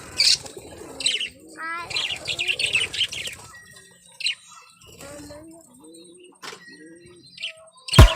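Caged birds chirping in short bursts, with wings flapping and a few low coos around the middle.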